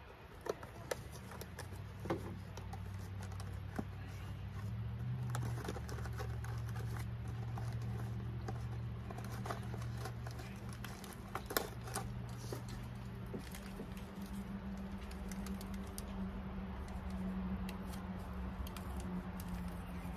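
A cardboard tea box and a paper tea-bag wrapper being handled, giving scattered light clicks, taps and rustles over a steady low hum.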